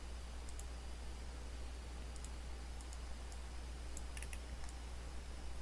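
Faint, scattered clicks from a computer mouse and keyboard, with a quick cluster of clicks about four seconds in, over a steady low hum.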